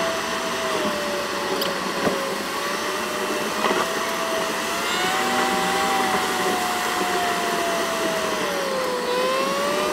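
In-car dashcam recording of a 2014 Ford Fiesta ST's engine and road noise on the freeway, played back at 8x speed so that it becomes a high, vacuum-cleaner-like whine. Its pitch drifts slowly up and down with engine speed, dipping near the end.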